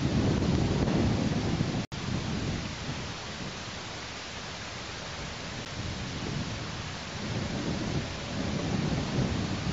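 Wind rumbling and buffeting on an outdoor nest-camera microphone over a steady hiss. The rumble comes in gusts, strongest at the start and again near the end, and the sound cuts out for an instant about two seconds in.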